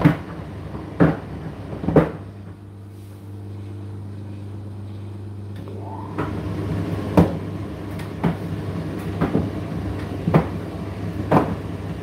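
Indesit IDC8T3 condenser tumble dryer running: a steady motor hum, with the load thudding in the turning drum about once a second. The thuds stop for a few seconds after about two seconds in, then come back.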